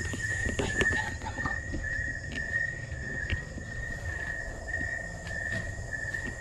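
Night insects chirring steadily in a high-pitched, evenly pulsing trill, with a few soft knocks in the first second or two.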